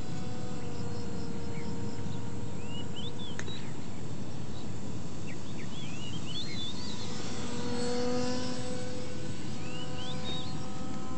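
Electric motor of a foam RC plane whining steadily at a distance over a constant rushing noise, growing a little louder about eight seconds in. Short rising chirps come and go above it.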